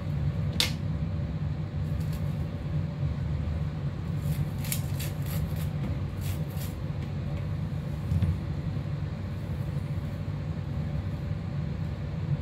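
A kitchen knife slicing kernels off a grilled corn cob, with a few crisp cutting clicks between about four and seven seconds in. Under it runs a steady low hum.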